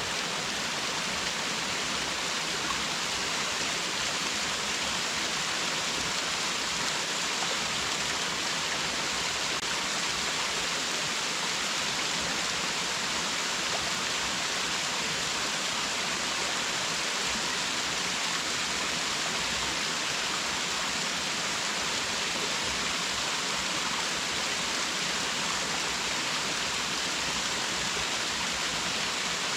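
Waterfall pouring steadily: a constant, even rush of falling water, heaviest in the hiss range, with no change throughout.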